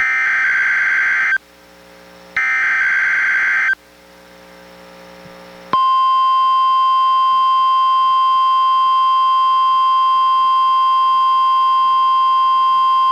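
NOAA Weather Radio Required Weekly Test from a Reecom R-1630 weather radio: two buzzy digital SAME header data bursts of about a second and a half each, a second apart, then after a short gap the steady 1050 Hz NWR warning alarm tone starts abruptly and holds.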